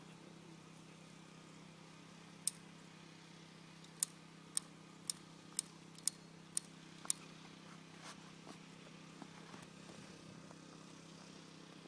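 A run of sharp, short clicks or cracks: one, then seven in a row about half a second apart, then a few fainter ones, over a steady low hum.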